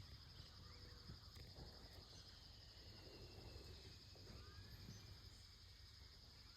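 Near silence: faint outdoor ambience, with a steady high-pitched insect hum and a few faint bird chirps.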